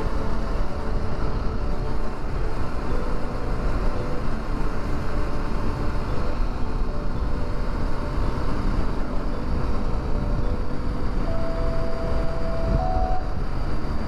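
Honda 400X motorcycle's parallel-twin engine running at steady cruising speed, under a heavy rush of wind on the microphone.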